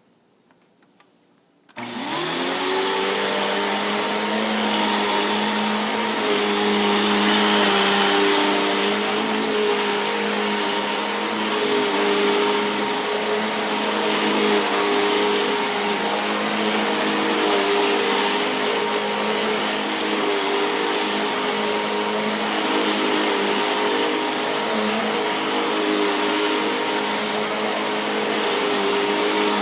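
Eureka The Boss 5856 vacuum cleaner with a 12-amp motor switched on about two seconds in, its motor quickly spinning up and then running steadily with a high whine over several lower tones. The owner takes its sound as a sign that the roller brush needs replacing.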